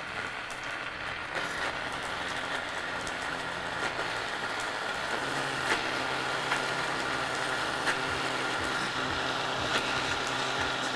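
Electric countertop blender running steadily, puréeing ginger, onion and garlic with a little water into a paste. Scattered sharp pops of mustard seeds crackling in hot oil.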